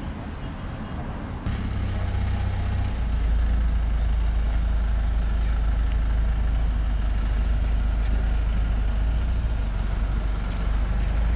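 A vehicle engine running as a low, steady rumble. It starts suddenly about a second and a half in and grows louder about a second later.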